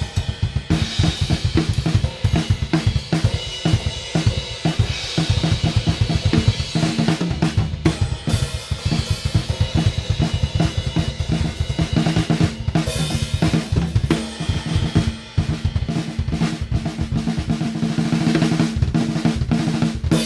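Drum kit played fast and continuously: rapid bass drum and snare strokes under a steady wash of hi-hat and crash cymbals, on a kit with double hi-hats, three crash cymbals and a splash.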